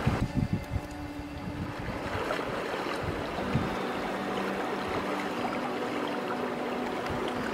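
Shallow mountain stream running steadily over smooth stones, with some wind on the microphone.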